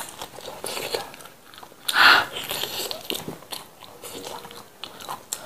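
Close-miked eating: wet biting and chewing with crunches and mouth clicks, the loudest crunch about two seconds in.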